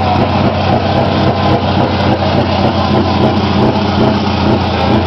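Large diesel truck engine running steadily at low revs, a deep even sound with no revving.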